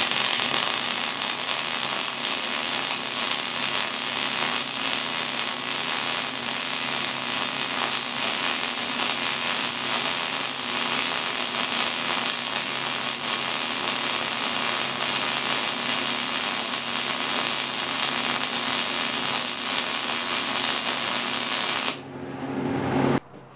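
MIG welding arc running steadily while a fillet weld is laid on a lap joint of 1/4-inch hot-rolled steel flat bar, the gun dragged forward and back along the joint. The arc cuts off about two seconds before the end.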